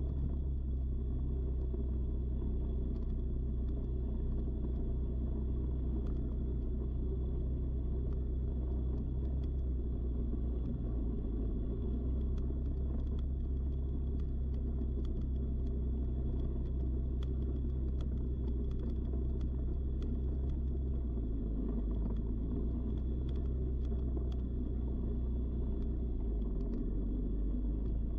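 ATV engine running steadily while riding a bumpy dirt track, with wind and road noise and scattered small knocks. The engine note shifts about three-quarters of the way through and again near the end.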